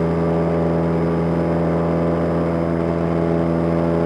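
Cessna 172M's four-cylinder Lycoming engine and propeller running steadily at climb power, heard inside the cabin as an even, unchanging drone.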